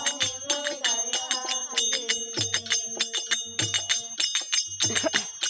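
Instrumental interlude of a Rajasthani folk bhajan: a harmonium holds notes over a dholak beat, with a deep drum stroke about every second and a quarter, while small brass hand cymbals (manjira) ring bright and steady on the beat. The harmonium drops out about four seconds in, leaving drum and cymbals.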